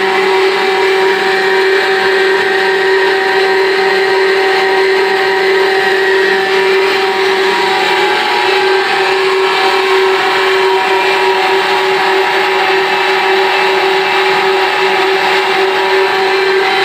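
Micro-hydro cross-flow turbine and its generator running steadily under load, producing power: a constant pitched hum with a steady whine over an even hiss.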